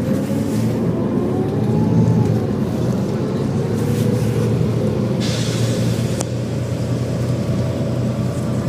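Volvo B7TL bus's six-cylinder diesel and driveline running under way, with a loud whine over the engine drone that drifts up and down in pitch. About five seconds in comes a short hiss, followed by a sharp click.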